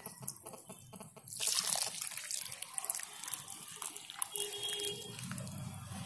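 Water poured from a container onto the potting soil of a clay pot, splashing and trickling into the earth as the freshly repotted plant is watered. The pouring starts about a second and a half in and runs on steadily.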